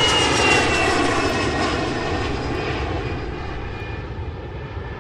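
An aeroplane passing overhead: a wide engine rush with a whine that slides slowly down in pitch, fading away as it recedes.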